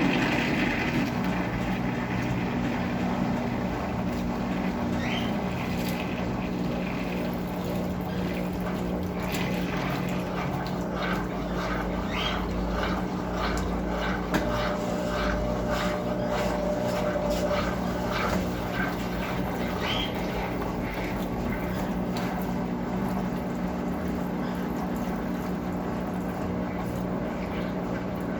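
Brastemp Clean 6 kg washing machine running with water in the tub: a steady motor hum under the sound of moving water. Through the middle the water swishes regularly, about twice a second.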